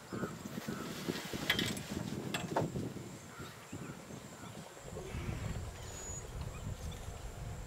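Outdoor ambience: short bird-like calls repeating, a few sharp snaps about one and a half and two and a half seconds in, and a low rumble that sets in about five seconds in.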